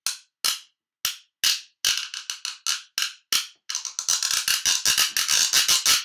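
Mouth-made crunching and clacking sound effects of teeth biting on a bundle of sticks: single sharp clicks two or three times a second, then a fast run of them for the last two seconds or so.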